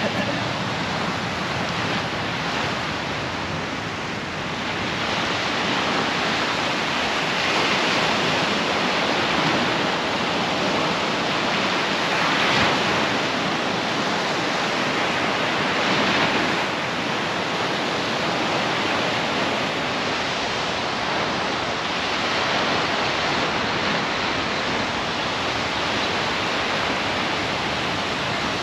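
Surf washing onto a sandy beach: a steady rush of water that swells each time a wave breaks, every few seconds.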